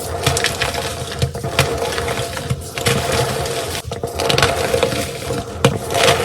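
Gym chalk being crushed: a continuous crunching and crackling with many sharp cracks, a few louder snaps among them.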